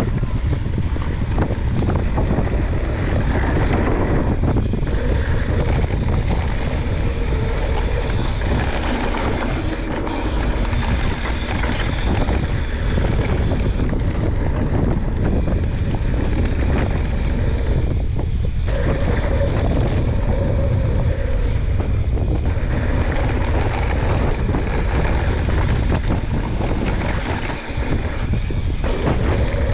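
Wind buffeting the camera microphone as a YT Jeffsy 29 mountain bike descends a dry dirt trail at speed, its tyres rolling over dirt and the bike rattling. The noise is steady and loud, with a short dip near the end.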